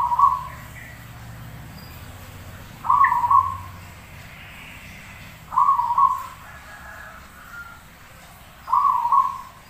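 Zebra dove (perkutut) cooing: four short coo phrases, each about half a second long, about three seconds apart.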